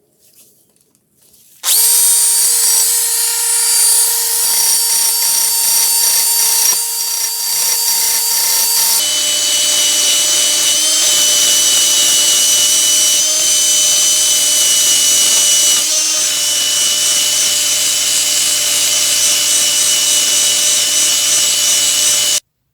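A power tool running steadily with a high whine. It starts suddenly about two seconds in, changes pitch about halfway through, and cuts off abruptly just before the end.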